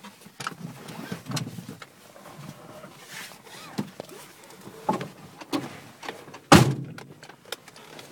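Car door shut with one loud thunk about six and a half seconds in, amid small clicks and knocks of handling inside the car.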